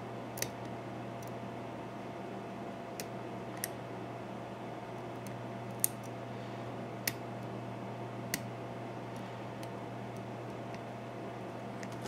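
Scattered small, sharp metallic clicks, about seven of them, from a hook pick and paperclip tension wrench working inside the keyway of an American Series 5200 padlock, over a steady low hum.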